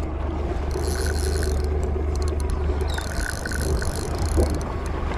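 A spinning fishing reel working under load while a fish is fought, giving two spells of high mechanical buzzing of about a second and a half each, over a steady low rumble.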